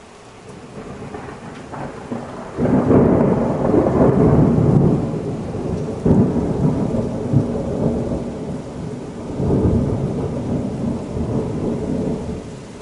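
A long peal of thunder. It builds, breaks sharply about two and a half seconds in, then rolls on in deep rumbling surges for nearly ten seconds before dying away near the end.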